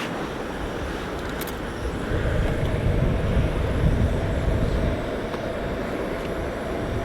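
Blizzard wind blowing in steady, rumbling gusts, swelling about two seconds in and easing again about five seconds in.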